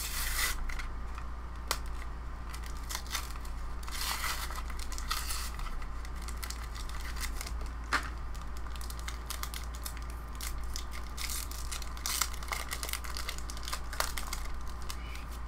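Foil wrapper of a Yu-Gi-Oh! booster pack crinkling and tearing as it is handled and ripped open, in irregular crackly bursts with a few sharp clicks.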